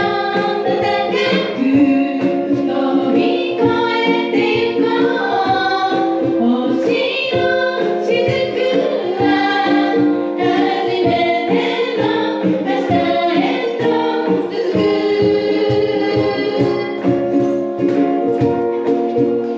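Three women singing together to their own strummed ukuleles in a bouncy live performance of a children's song.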